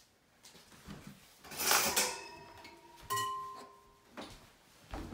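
Metal kitchenware clattering: a rattle about one and a half seconds in, then a sharp knock about three seconds in, each leaving a short metallic ring.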